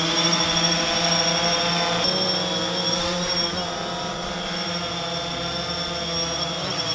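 DJI Phantom 3 Standard quadcopter's motors and propellers whining steadily in flight, with the pitch sagging and recovering slightly a few times as it is flown.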